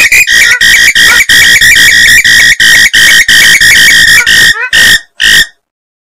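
Swamphen (mandar biru) calls from a bird-lure recording: a fast run of loud, harsh, screeching calls, about three a second, that stops near the end. These are the breeding-season calls used to lure swamphens in.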